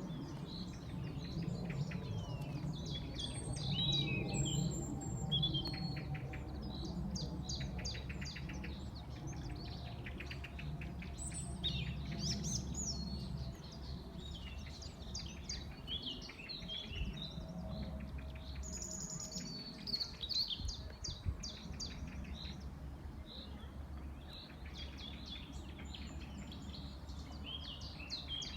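Small birds chirping and singing over a steady low rumbling drone, with a faint tone that slowly falls in pitch. The drone is the unexplained 'strange sound' heard in the sky, of unknown source.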